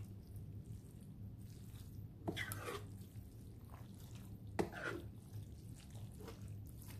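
Faint wet squelching of spaghetti in a creamy sauce being folded with a spoon in a pan, with two clearer squishes about two and a half and four and a half seconds in, over a low steady hum.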